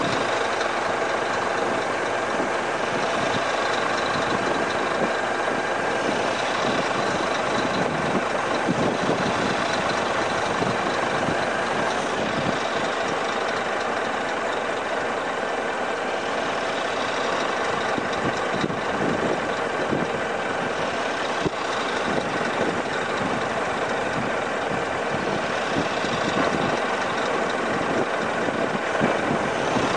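An engine idling steadily, with an even, unchanging noise.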